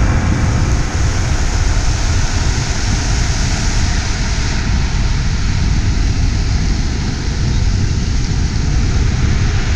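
Wind buffeting a moving camera's microphone at downhill longboarding speed, mixed with the roar of skateboard wheels rolling on asphalt. It is a loud, steady rushing noise with a deep rumble.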